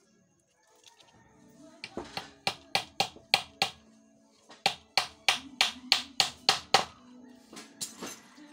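A hammer striking in two quick runs of sharp blows, about three a second. Seven blows start about two seconds in, then eight more after a short pause.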